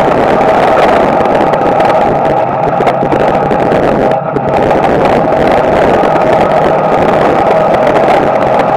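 Small-block Chevy V8 of a dirt-track street stock car running steadily, heard loud from inside the car's cockpit, with a brief dip about four seconds in.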